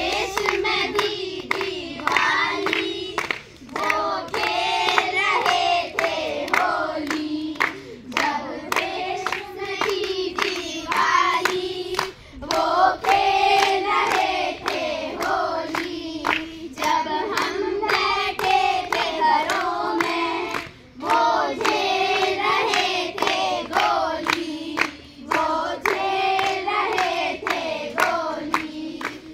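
A group of girls singing together in chorus while clapping their hands in a steady rhythm, the sung phrases breaking briefly every few seconds.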